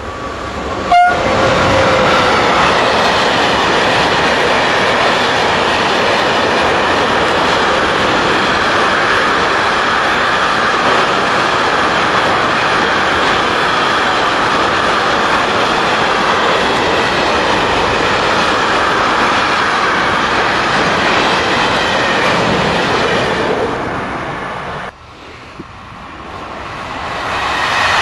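Freight train hauled by an electric locomotive passing close at speed: a short horn toot about a second in, then the steady noise of the wagons rolling past, fading near the end before another train's sound rises.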